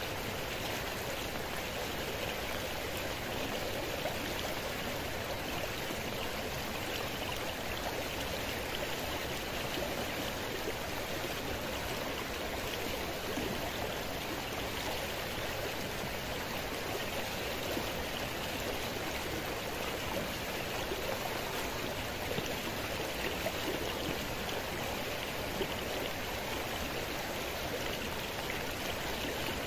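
Steady heavy rain, an even hiss of falling water that holds without a break.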